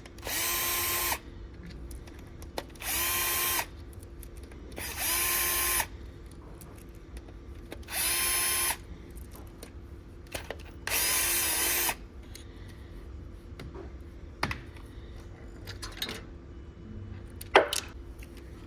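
Power drill/driver running in five short bursts of about a second each, spinning bolts out of an engine, each burst rising in pitch as the motor spins up. Light clicks follow, then a metal clank near the end.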